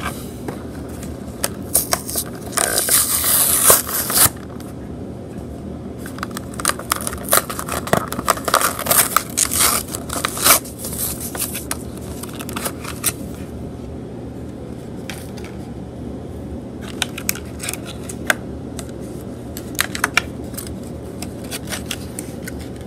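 Plastic blister packaging of a boxed diecast toy car being torn open and crinkled. There is a loud tearing rush about three seconds in, then bursts of crackling, clicking plastic.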